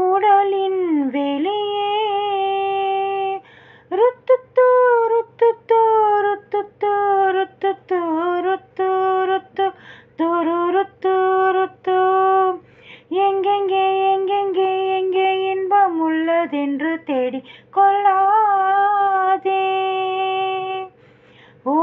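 A solo high voice singing a wordless melody, with long held notes and quick wavering runs broken by short pauses.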